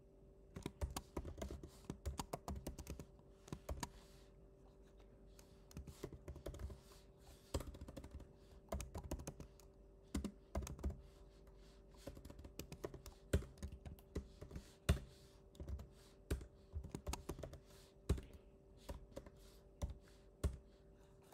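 Typing on a computer keyboard: runs of quick keystrokes in bursts with short pauses between them.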